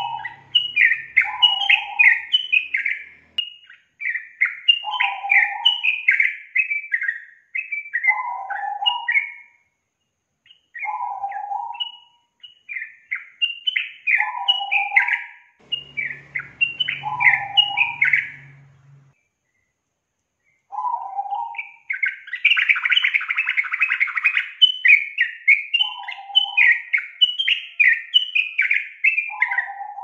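Yellow-vented bulbul (trucukan) singing: phrases of quick bubbly chirping notes, broken by short pauses, with a lower note every few seconds. About two-thirds of the way in comes a dense, buzzing chatter lasting a few seconds before the chirping phrases resume.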